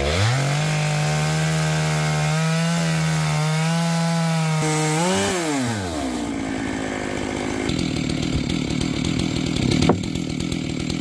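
Chainsaw mill ripping a beech log. The saw revs up sharply and holds a steady high pitch for about five seconds. Its pitch then falls and the sound turns rough and noisy, with a sharp crack about ten seconds in.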